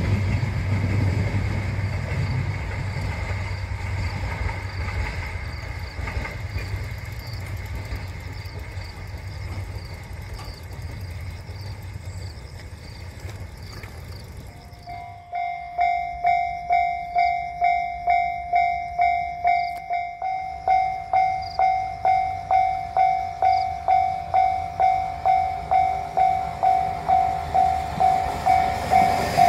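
A JR Kyushu 'Nanohana' diesel railcar runs past the crossing, its rumble fading away. About halfway through, a Japanese level-crossing warning bell starts ringing loudly and keeps up a steady ding-ding of about two strikes a second.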